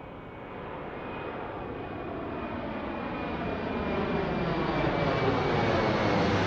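A steady rushing noise that grows steadily louder and brighter, like something approaching.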